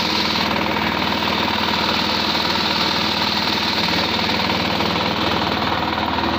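A boat's engine running steadily as the boat moves through floodwater, a loud, even drone with water noise over it.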